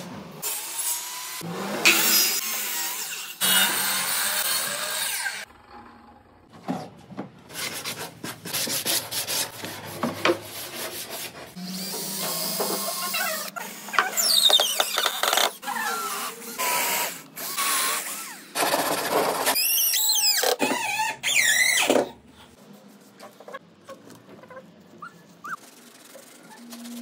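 A run of quickly cut woodworking tool sounds: a cordless drill running and boring or driving screws into OSB board, its motor whining up and down in pitch, with squeaks and rubbing between cuts. Much quieter for the last few seconds.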